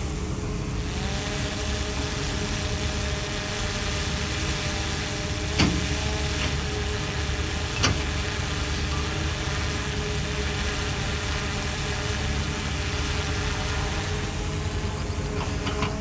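Diesel engine of heavy earthmoving equipment running steadily, with two sharp knocks about two seconds apart.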